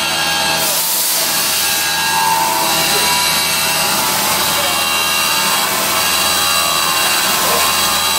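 A 6 mm four-flute high-speed steel end mill on a manual milling machine cutting a slot through the quarter-inch wall of a galvanised steel pipe in a single full-depth pass: a steady, harsh cutting noise over the machine's running, growing brighter about half a second in.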